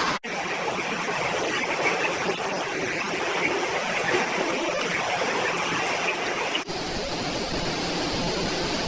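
Floodwater rushing, a steady dense wash of fast-flowing water, cut off briefly just after the start and again about two-thirds of the way through.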